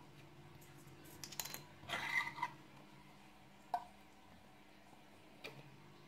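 Small kitchen handling sounds: the screw cap of a small glass bottle twisted off with a few light clicks and a brief scrape, then a single light clink of a metal spoon and a faint click.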